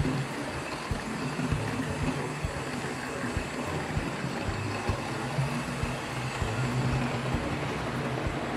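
Hornby OO gauge model of the A1 locomotive Tornado running on track, its bare mechanism heard with no sound decoder fitted: a steady electric motor and gear hum with irregular clicks of wheels on the rails, the coaches rumbling along behind.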